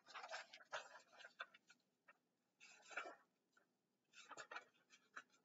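Faint rustling of paper as the pages of a large paperback picture book are handled and turned, in three short bursts.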